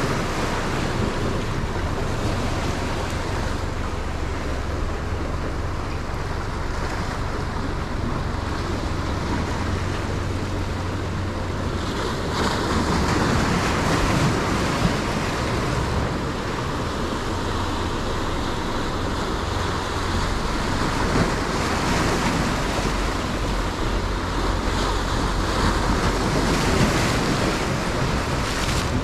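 Ocean surf breaking and washing against rocks, with wind rumbling on the microphone. The wash swells louder about twelve seconds in and again several times near the end.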